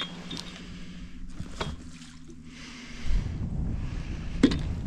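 Wind rushing on the microphone, with a low steady hum that stops about three seconds in and a couple of knocks, the louder one near the end.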